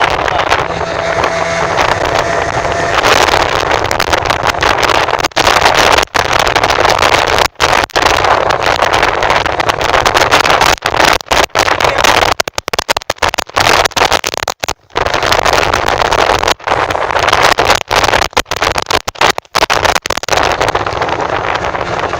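Navigator BreZZa motorboat running at speed into a headwind: a loud, steady rush of wind on the microphone mixed with engine and water noise. The sound drops out briefly many times, most often around the middle.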